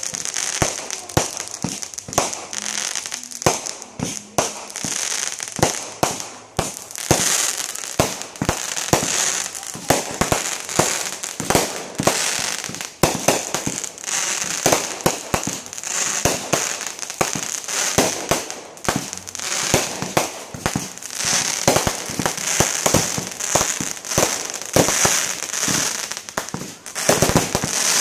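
Fireworks display: aerial shells bursting in quick, irregular succession, many sharp bangs a second over a steady high hiss from the sparkling stars.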